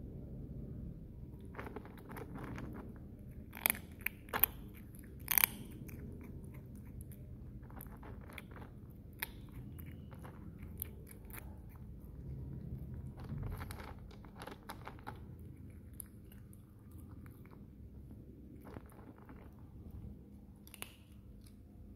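Kitten crunching dry kibble, biting and chewing with sharp cracks. The loudest crunches come in a quick cluster a few seconds in, then quieter crunching goes on and off.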